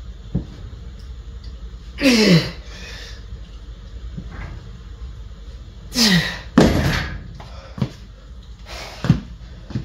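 Iron weight plates on a cable loading pin knocking and clanking as the stack is pulled up and lets down, the loudest clanks a little after the middle. Two strained grunts of effort, each falling in pitch, come about two seconds in and again near six seconds.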